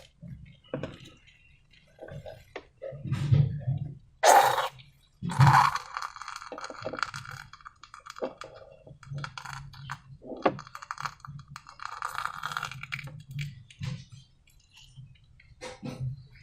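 Hands working slime and balloon-making materials: scattered clicks and taps, two louder sharp knocks about four and five seconds in, and stretches of crackly rustling and squishing.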